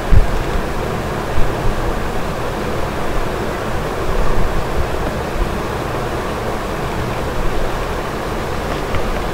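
Steady rushing background noise, like an open microphone's hiss, with a couple of short low thumps in the first second and a half.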